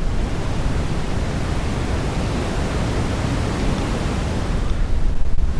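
Zener-diode noise from the morph output of a Feedback Static Eurorack noise module: a steady, full-range hiss. Its tone shifts slightly near the end as the pot sweeping between the Zener noise types is turned.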